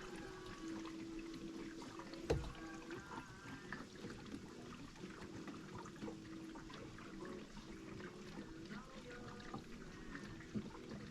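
Fuel pouring into a jerry can, a faint steady trickle with a hollow ringing tone from the filling container. One short knock about two seconds in.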